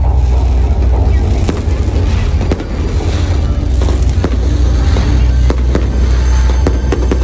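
Fireworks going off in a string of sharp bangs and crackles, coming faster near the end, over loud music with a heavy bass.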